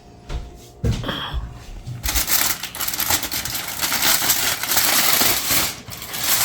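Crinkling wrapping being pulled open from around a smoked pork roast, a dense crackling rustle lasting several seconds, after a few low knocks as the package is handled.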